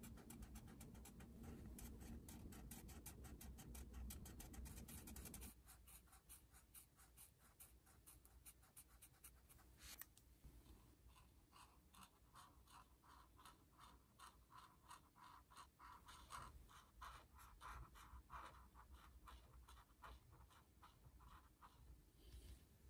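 Faint scratching of Ohuhu alcohol marker tips stroking across a coloring-book page in quick, repeated strokes, with a single click about ten seconds in.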